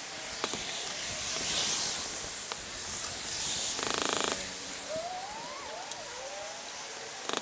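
Steady outdoor hiss of wind and street noise, with a couple of sharp taps, a brief buzzing rattle about four seconds in and a few short gliding chirps after it.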